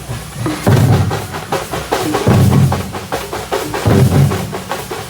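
Drum-heavy music: quick, dense drum strikes over a deep bass beat that lands about every second and a half.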